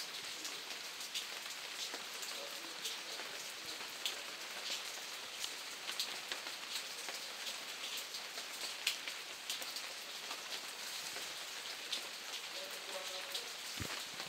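Steady rain falling: an even hiss with many sharp, irregular ticks of individual drops landing close by.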